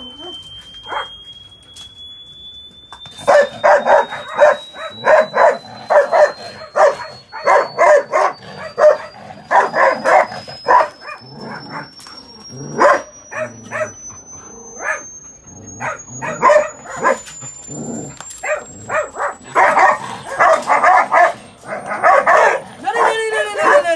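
Dogs barking over and over, starting about three seconds in. Under the barks, a phone plays a thin test tone that climbs slowly and steadily in pitch, a frequency sweep meant to run up toward 20 kHz.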